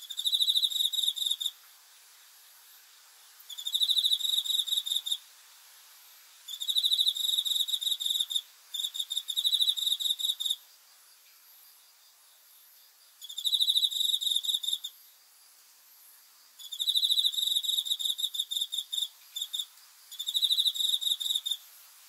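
Field cricket singing: seven bursts of rapid, high-pitched pulsed trilling, each a second and a half to two and a half seconds long, separated by short pauses.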